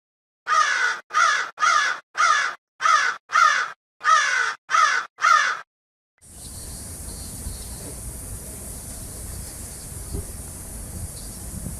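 About ten short, harsh, caw-like animal calls, mostly in pairs, each falling slightly in pitch. They stop abruptly, and after a second of silence a steady background hiss takes over.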